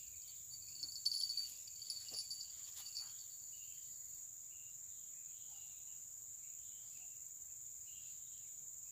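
Steady high-pitched drone of insects, with a few light clicks and taps in the first three seconds as fishing rods are handled.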